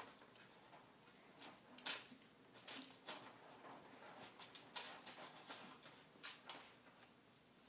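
Kitten scratching and digging in granular cat litter: faint, irregular short rakes of its paws through the granules, coming in clusters with brief pauses.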